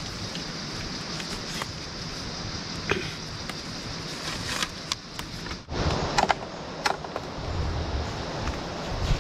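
Steady rushing of a small stream with a high, even hiss over it, broken by a handful of sharp knocks and cracks of wood being cut and handled, loudest about six seconds in.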